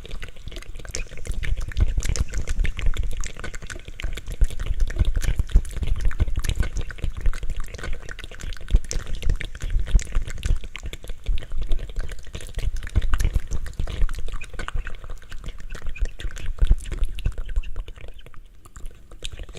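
ASMR licking and wet mouth sounds: a steady run of quick wet clicks and smacks over soft low thuds, easing off a little near the end.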